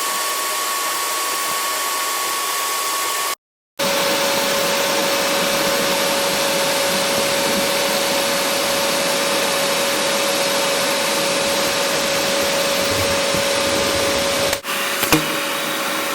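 Vacuum cleaner motor running steadily with a whine, blowing air through a PVC tube air bazooka. It cuts out briefly about three seconds in, and the whine is lower after that. A short sharp knock comes near the end.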